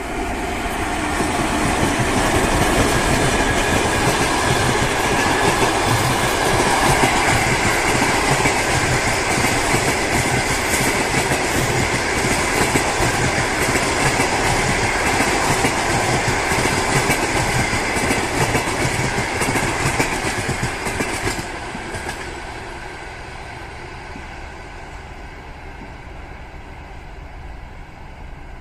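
ChS7 electric locomotive and its long rake of passenger carriages passing close by, with steady wheel-on-rail noise. The noise swells as the locomotive arrives, stays loud while the carriages roll past, and falls away about twenty-one seconds in as the train moves off into the distance.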